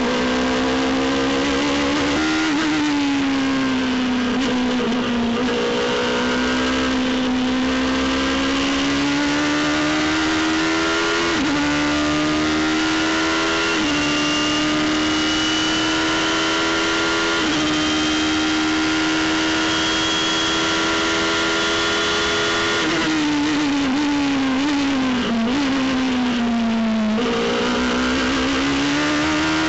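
Radical SR3's motorcycle-derived four-cylinder engine heard onboard, its pitch rising and falling gently at part throttle, then climbing steadily under full throttle with a thin high whine above it. Near the end the pitch drops in wavering steps under braking and downshifts, then rises again as the car accelerates out of the corner.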